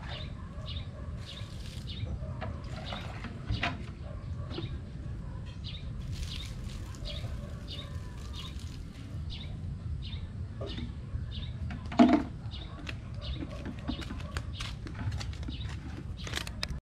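Birds chirping again and again in short high notes over a steady low rumble, with one louder, sharper sound about twelve seconds in.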